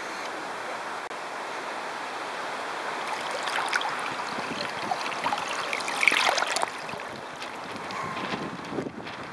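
Water rushing and splashing along the hull of a 900 mm radio-controlled sailboat as it sails, with wind on the microphone. The splashing grows heavier from about three seconds in and is loudest around six seconds.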